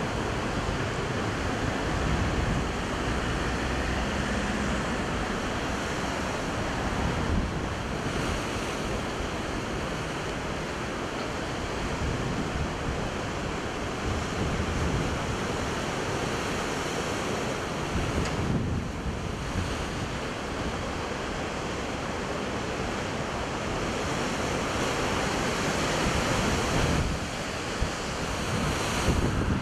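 Heavy sea surf breaking on a rocky shore and breakwater: a continuous wash of crashing waves, with wind rumbling on the microphone.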